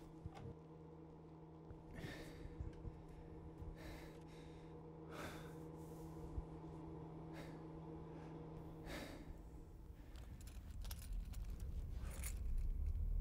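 A man breathing heavily in a series of sharp gasps and sighs, about five of them, over a steady low hum. A deep low rumble swells up near the end.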